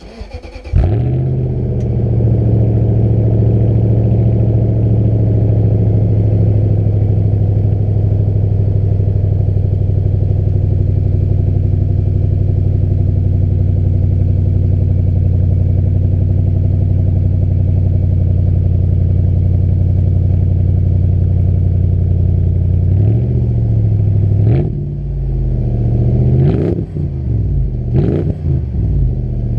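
Lexus GX 470's 4.7-litre V8 cold-started: the starter cranks briefly and the engine catches about a second in, then settles into a steady fast cold idle. Near the end its revs rise and fall a few times.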